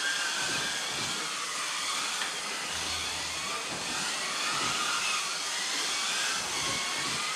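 Several Kyosho Mini-Z RWD electric RC cars racing together: the high whine of their small electric motors, several at once, each rising and falling in pitch as the cars speed up and slow down through the corners.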